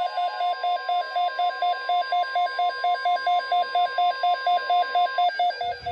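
NOAA Weather Radio alert tones: a steady warning alarm tone with a fast warbling beep over it, about five pulses a second. The steady tone cuts off about five seconds in, and the warble stops shortly after, just before the announcement begins.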